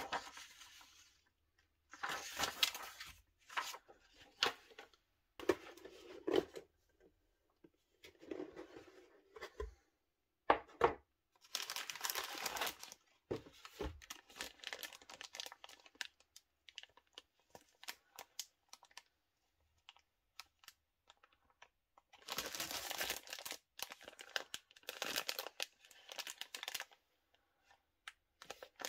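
Clear plastic bags holding grey plastic model-kit sprues crinkling as they are handled, in a series of bursts with short quiet gaps between. A paper instruction sheet rustles at the start.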